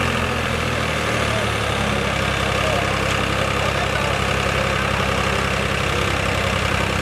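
New Holland 3630 tractor's diesel engine running steadily while the tractor stands reared up on its rear wheels.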